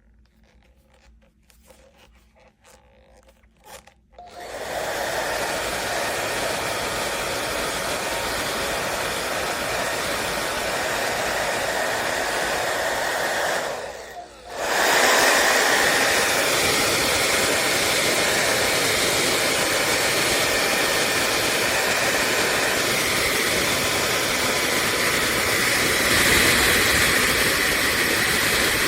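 Revlon Turbo 1875-watt hair dryer: a few faint clicks of handling, then it switches on about four seconds in and blows with a steady, loud rush of air. It cuts out briefly about ten seconds later and comes back on louder.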